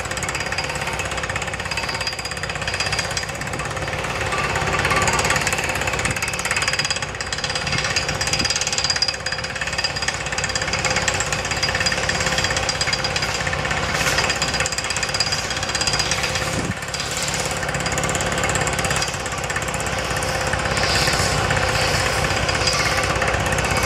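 Down-the-hole pneumatic rock drill hammering through bedrock inside a steel pile pipe, driven by compressed air and water. It makes a steady, very rapid hammering, with the hiss of air and water blowing rock chips out of the top of the pile.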